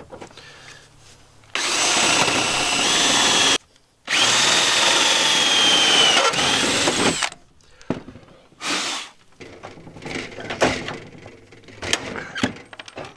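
Cordless drill boring holes through a metal drawer slide, in two runs of about two and three seconds with a whining motor pitch, then a short third run. Near the end, a hand pop-rivet tool sets rivets with a few sharp snaps.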